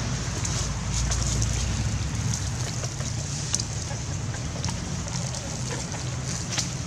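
Steady outdoor background noise: a low wind rumble on the microphone over an even hiss, with a few faint clicks.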